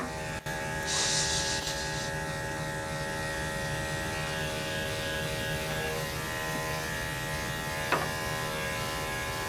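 Electric dog-grooming clippers with a #10 blade running steadily as they shave matted coat off a Maltese puppy's legs, with a brief hiss about a second in and a sharp click near the end.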